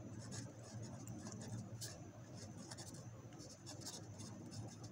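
Ballpoint pen writing on notebook paper: faint, irregular scratching of the pen strokes.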